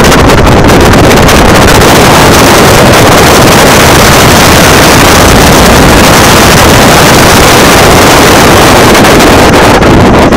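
Wind buffeting a phone's microphone in a moving car, a loud, steady rushing that nearly overloads the recording, with road noise underneath.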